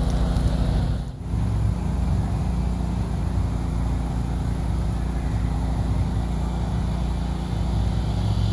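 Portable generator running steadily, a constant engine hum that briefly dips about a second in.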